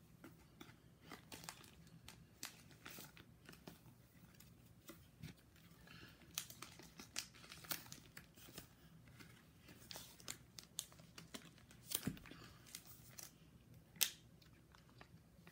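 Plastic pocket pages of a card binder crinkling and rustling as baseball cards are slid into the sleeves, with scattered quiet clicks and taps and a couple of sharper ticks near the end.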